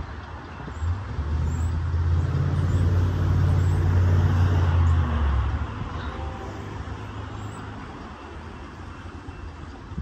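A motor vehicle's engine passing close by: a low rumble that swells about a second in, is loudest around four to five seconds, then fades away.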